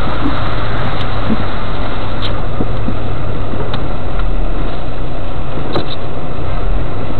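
Off-road vehicle's engine and drivetrain rumbling steadily as it crawls slowly along a waterlogged forest track, heard from inside the vehicle, with a few light knocks as it jolts over the ruts.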